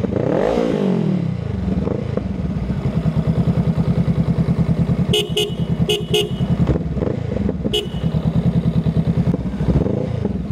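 A 2021 Honda Rebel 500's parallel-twin engine idling through an aftermarket Vance & Hines exhaust, with a quick throttle blip near the start and a smaller one near the end. Around the middle, a horn gives five short beeps: two quick pairs, then one.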